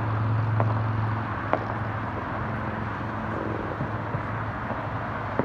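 Outdoor background during a fireworks lull: a steady low hum that stops about a second in, and a few faint, distant firework pops.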